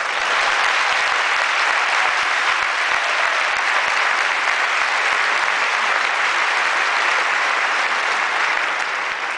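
Large audience applauding, a dense, steady clapping that tapers slightly near the end.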